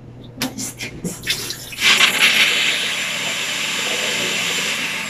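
Small plastic knocks as the food processor bowl and lid are handled, then the electric food processor runs for about three seconds from about two seconds in, a steady whirr that fades slightly near the end.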